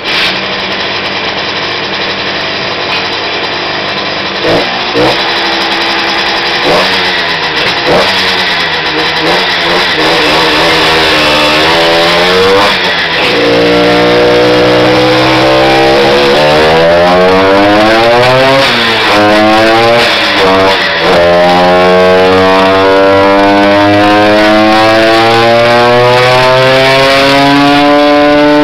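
Big-bore-tuned Simson MS50 Sperber two-stroke single-cylinder engine running on a dyno. It gets a few quick throttle blips, then makes a full-throttle run: the pitch climbs, drops twice at gear changes, and climbs again to the top of the run.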